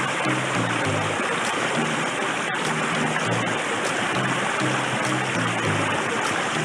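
Shallow stream rushing and splashing over rocks, a steady hiss of water, with background music playing short low notes underneath.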